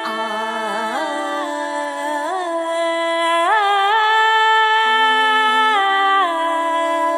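Slow, beatless music of several held melodic lines that glide smoothly from one note to the next.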